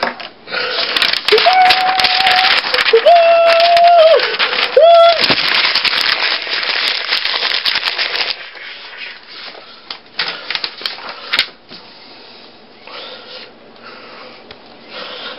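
Sheets of paper being handled and rustled for about eight seconds, with three short squeaky tones in the middle. Then comes a quieter stretch of scratching and ticking as a marker draws on fresh paper.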